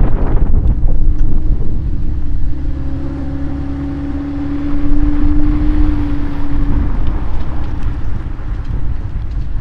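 Towed travel trailer rolling on the road, heard from a camera mounted under the chassis: heavy road and wind noise, with a steady humming tone from a little after two seconds in until about seven seconds in.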